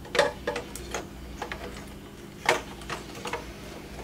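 Scattered light clicks and knocks of hard plastic parts being handled as the supply tube is worked into the body of a Polaris 380 pool cleaner, with the loudest knock about two and a half seconds in.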